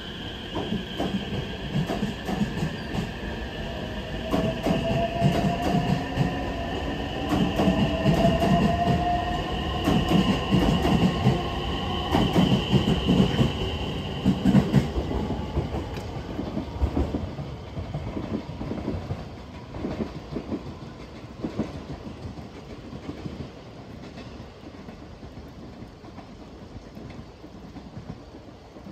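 JR West 287 series electric express train pulling out and accelerating away. A whine from its traction motors rises in pitch while the wheels click over the rail joints. It is loudest as the last cars pass, about halfway through, then fades into the distance.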